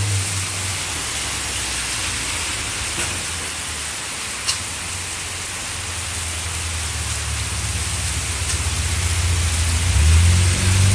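Heavy tropical rain falling, a steady even hiss, with a low rumble underneath that grows louder near the end.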